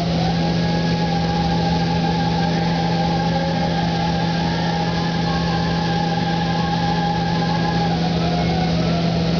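Paint spray booth running: a steady hum and rush of air from the booth's ventilation, with the hiss of a spray gun spraying clear coat. A thin whistling tone holds from just after the start until about a second before the end.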